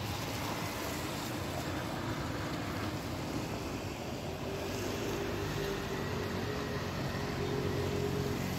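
Street traffic noise on a wet city street, with a car passing close by at the start. A steady hum with a faint tone comes in about halfway through.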